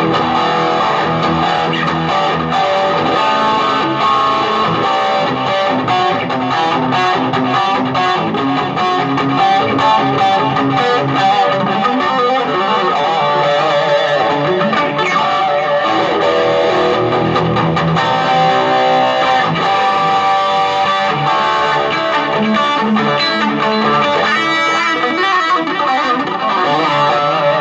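Electric guitar playing continuously through a small Marshall MG15 solid-state combo amp.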